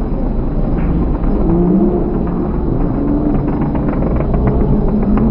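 A pack of hobby-class stock pickup race trucks running together, their engines a dense rumbling drone that rises and falls in pitch as they rev through the turn. A run of short sharp clicks comes in over the engines in the second half.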